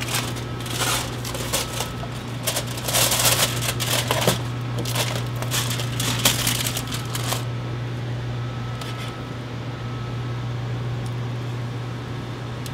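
Aluminium foil and plastic wrap crinkling and rustling as they are peeled off a steel hotel pan of braised pot roast, for about seven seconds. The crinkling then stops, leaving a steady low hum of kitchen ventilation.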